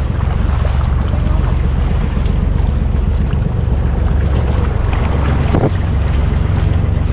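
Small fishing boat's engine running steadily, with wind buffeting the microphone.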